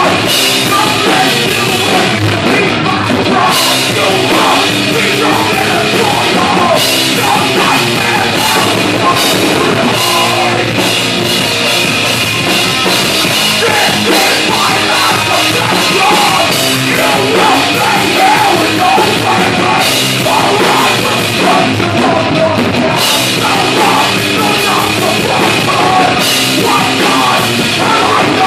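Heavy metal band playing live at full volume: distorted electric guitars, bass and a drum kit, with a vocalist shouting into a microphone.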